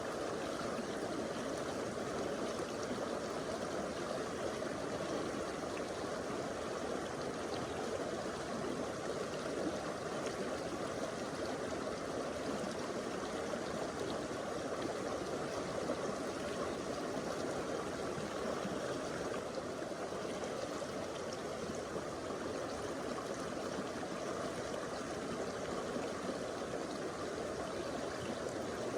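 Stream water flowing over rocks, a steady rushing and babbling.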